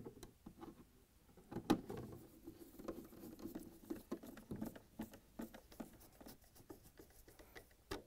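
Nut driver turning quarter-inch screws into a refrigerator's cardboard rear access panel: faint, irregular small clicks and scraping, with one sharper click near two seconds in.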